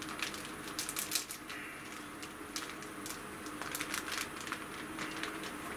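Clear plastic zip-top bag crinkling and rustling in irregular bursts as it is handled and peeled off a block of marinated pork, busiest about a second in and again around four seconds.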